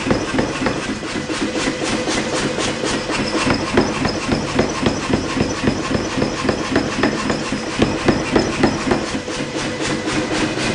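Steady, rapid hammer blows on a hot Damascus billet, about three to four strikes a second, fairly gentle, setting the forge welds of the stack.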